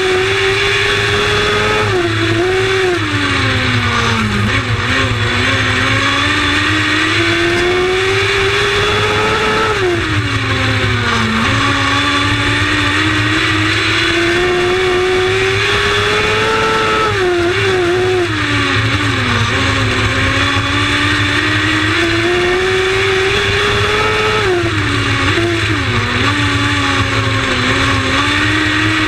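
Lightning Sprint race car engine running at racing speed. Its pitch climbs gradually, then drops and wavers as the throttle is lifted and reapplied. The pattern repeats about every seven to eight seconds, lap after lap on a short oval.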